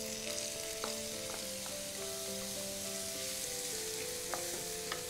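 Grated bottle gourd sizzling in hot ghee in a frying pan, with a wooden spatula stirring it and ticking against the pan a few times. Soft background music with long held notes plays underneath.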